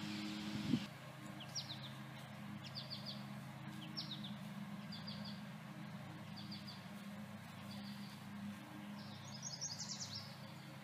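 A small songbird chirping: short, high, quick chirps in little clusters, repeating about once a second, with a denser run near the end, over a steady low hum. There is a brief low thump in the first second.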